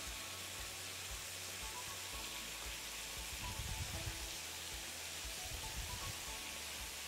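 Faint, steady sizzle of courgette slices frying in a pan, with a few soft low bumps around the middle.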